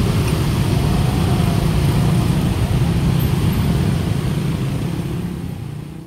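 Dense road traffic, mostly motorcycle and scooter engines with some cars, running steadily as they pass over a railway level crossing; the crossing bell is not sounding. The sound fades out near the end.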